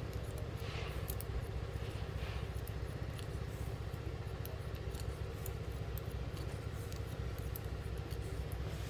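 Barber's scissors cutting hair in quick, irregular snips over a steady low hum.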